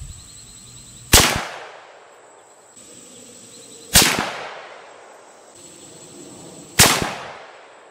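Three rifle shots from a .22-250 CVA Cascade bolt-action rifle, fired about three seconds apart, each sharp crack followed by a rolling echo that fades over about a second.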